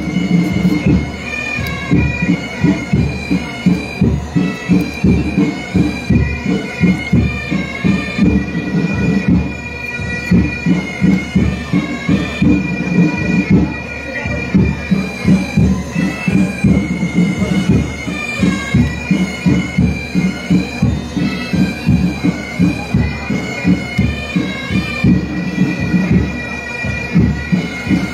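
Bagpipes playing a slow melody over a steady drone, with a drum beating a regular slow rhythm about twice a second.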